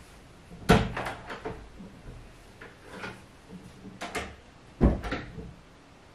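A door being opened and shut: a thud less than a second in, then clicks and knocks, and a second, equally loud thud about five seconds in.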